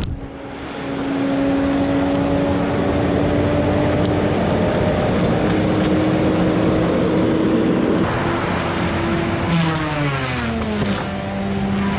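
Timber Pro TL745D forestry machine's engine working hard, with a steady tone that creeps slowly up in pitch under a dense rushing noise. About ten seconds in, the tone drops in pitch as the machine eases off.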